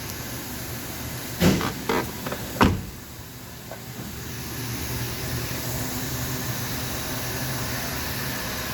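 Ford F-150's V8 engine running, a steady low hum, with a cluster of sharp clunks starting about a second and a half in; the last and loudest comes just under three seconds in.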